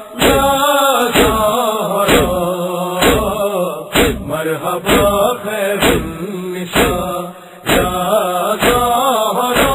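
A noha, a Shia lament, chanted by voice over a steady beat of about three strokes every two seconds.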